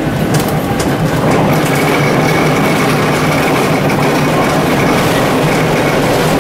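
Gotha tram running along street track, heard from inside the driver's cab: a steady rumble of wheels and running gear, with a few light clicks in the first second and a faint high whine joining about a second in.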